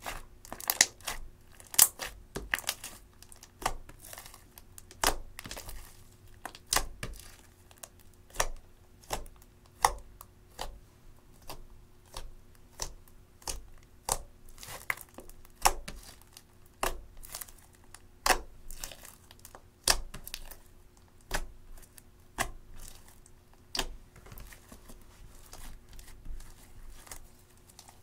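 Glossy clear slime tinted with eyeshadow being squeezed, pressed and folded by hand, making sticky, wet clicks and pops about one or two a second. They are loudest in the first few seconds.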